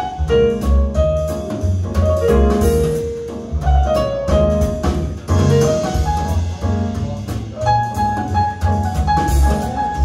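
Jazz with piano, a deep bass line and a drum kit, played back through Vimberg Tonda loudspeakers.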